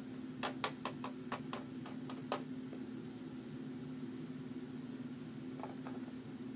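Small plastic Littlest Pet Shop figures clicking and tapping against a plastic playhouse as they are moved about: a quick run of about ten light clicks in the first two seconds and two fainter ones near the end, over a steady low hum.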